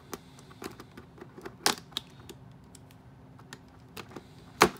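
Stiff clear plastic doll packaging being handled and worked at, giving scattered clicks and crackles, with two louder snaps, one about a third of the way in and the loudest near the end.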